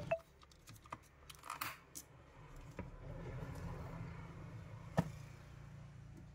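Small handling noises: a few light clicks and taps, a short crinkly rustle about a second and a half in, and a single sharper click about five seconds in, over a faint low hum.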